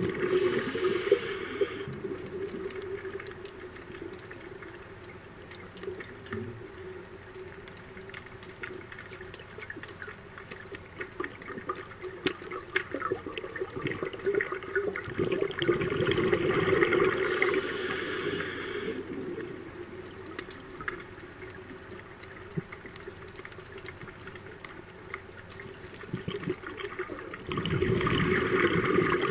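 Scuba diver's regulator breathing heard underwater: three bursts of exhaled bubbles, one near the start, one about halfway and one near the end, with faint crackling and a steady low hum in between.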